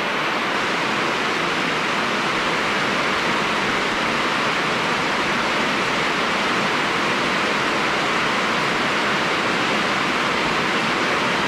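Heavy rain pouring down steadily, a dense, even hiss with no letup.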